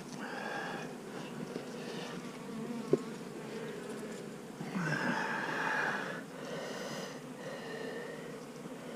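Honeybees buzzing around an open hive, the buzz coming and going in waves and loudest about five seconds in. A short click sounds near three seconds.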